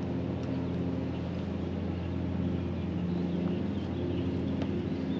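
Steady low hum of a boat motor running at an even speed, with no change in pitch or level.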